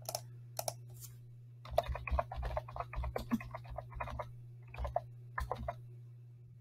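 Computer keyboard typing: a few single keystrokes in the first second, then a quick run of keystrokes, then a few more scattered ones. A steady low hum sits underneath.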